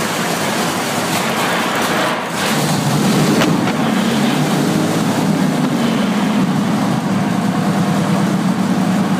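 Junkers Jumo 205 opposed-piston two-stroke diesel aircraft engine running with its wooden propeller spinning. It gets louder about two and a half seconds in, then holds steady.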